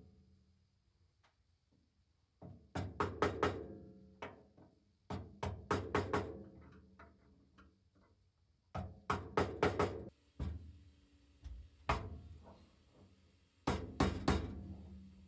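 Bursts of several quick metal taps every few seconds, with a single knock near the end: the steering-shaft bearing being tapped into its housing in the Porsche 911 steering column with a tube-shaped driver.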